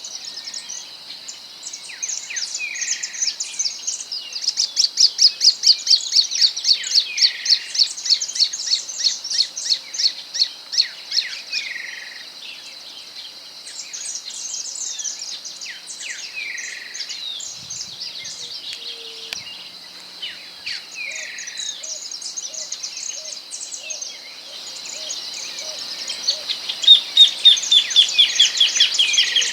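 Wild songbirds singing: bursts of fast, high trills repeated every second or two, mixed with short down-slurred whistles, over a steady high insect drone. A louder trill sets in near the end.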